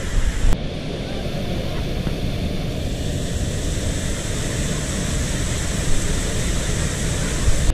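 Steady outdoor background noise with a heavy low rumble and no distinct event. It changes abruptly about half a second in.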